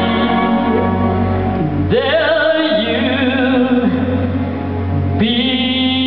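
Live ballad with instrumental accompaniment: held chords, then about two seconds in a woman sings a long held note with vibrato into a handheld microphone; near the end the accompaniment moves to a new sustained chord.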